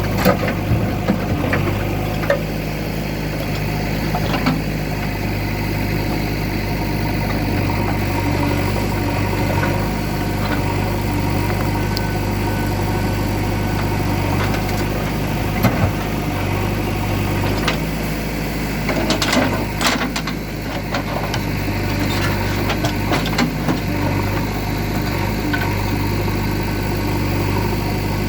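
JCB 3DX backhoe loader's diesel engine running steadily, with sharp clanks and knocks at intervals, heaviest about two-thirds of the way in, as it works loading large stones.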